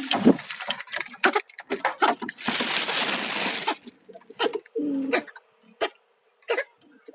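Pigeons cooing, with many short sharp clicks and hacks from a sick pigeon that keeps coughing, the wheezing cough of a respiratory infection. A dense rustling noise lasts about a second near the middle.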